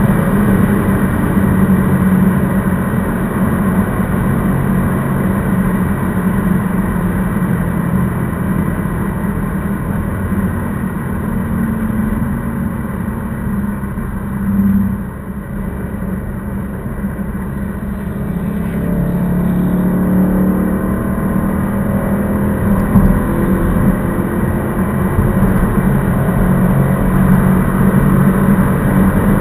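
Ford Mustang GT's 5.0-litre V8 with a Roush aftermarket exhaust, heard from inside the cabin while cruising at motorway speed, with road noise. The engine sound drops about halfway through, then builds again as the car pulls.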